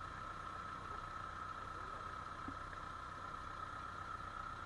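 Tractor engine idling steadily: a constant low rumble with a steady hum above it.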